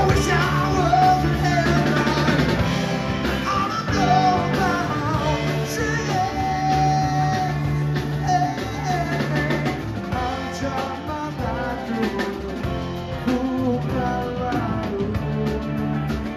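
Live rock band playing, with drum kit, electric guitars and bass guitar, and an amplified harmonica wailing lead lines over the groove.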